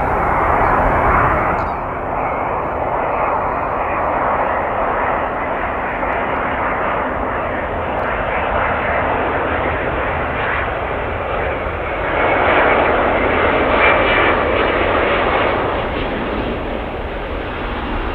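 Jet noise of an Airbus A350-941 on final approach, its Rolls-Royce Trent XWB engines at approach power: a steady rushing sound that swells louder about twelve seconds in as the airliner passes close overhead toward touchdown.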